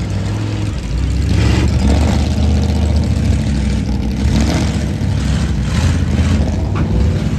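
Big engine of a mega mud truck running steadily, with a deep drone that gets louder about a second in.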